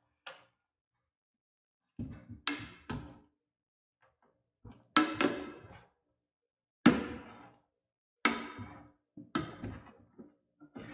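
Screwdriver prying the lid off a one-gallon metal paint tin, working around the rim: a series of about a dozen irregular sharp metallic knocks and pops, each ringing briefly.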